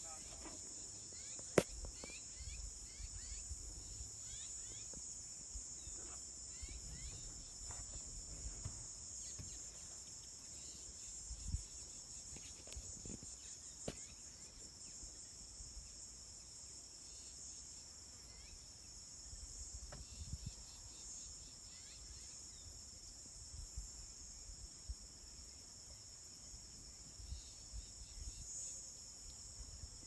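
Steady, high-pitched insect chorus, cricket-like, with a few sharp clicks, the loudest about one and a half seconds in, over a low rumble.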